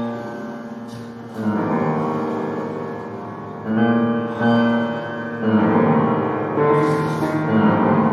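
Upright piano improvisation: chords and low notes struck about once a second and left to ring into each other, blended with the electronic output of the RAVE generative AI music system answering the piano.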